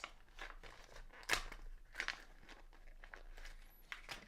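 Tweezers clicking and scraping against the plastic of an action figure's head while prying at a broken peg: a handful of separate sharp clicks, the loudest about a second and a half in.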